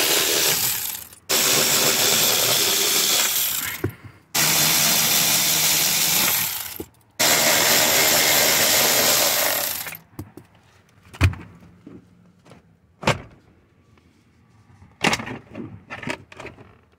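Cordless electric ratchet spinning out 10 mm bolts in several runs of two to three seconds each, with short pauses between them. After the last run come a few scattered knocks and clicks.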